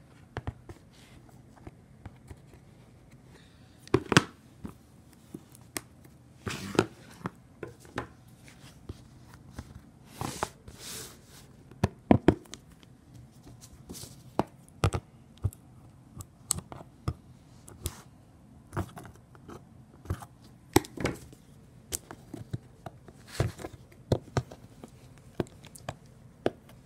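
Cardboard FedEx box being handled and torn open by hand: irregular knocks, scrapes and rustles of cardboard, with a couple of longer tearing sounds about ten seconds in.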